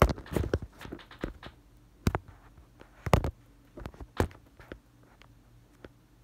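Handling noise of a mobile phone being picked up and set in place: a run of knocks, thumps and rubbing close to the microphone, the loudest a little after three seconds in, thinning to a few light clicks near the end.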